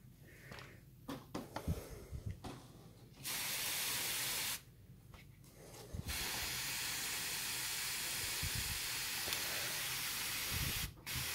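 Hand-pump pressure sprayer spraying water in a steady hiss: a short burst a few seconds in, then a longer spray of about five seconds, a brief break, and spraying again near the end. Light handling clicks come before the first burst.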